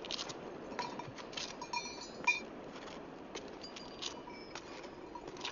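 Small goat bells tinkling irregularly, a scatter of light clinks and short rings.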